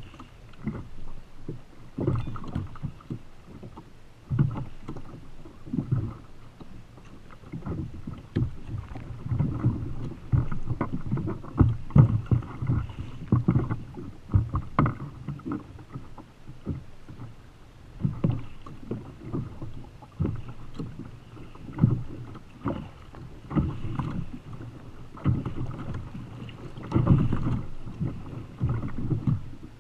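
Choppy sea slapping and knocking against a Feelfree Lure 13.5 fishing kayak's plastic hull in irregular low thumps, with wind on the microphone.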